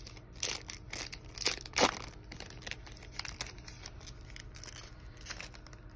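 Plastic trading-card pack wrapper crinkling and tearing as the pack is opened, with a few sharp rustles in the first two seconds and then fainter handling of the wrapper and cards.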